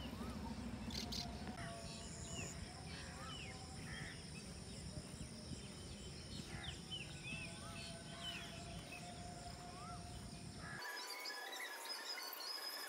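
Birds chirping in short rising-and-falling calls over a steady high insect drone and a low outdoor rumble. About eleven seconds in, the rumble cuts off abruptly, leaving thinner high chirping.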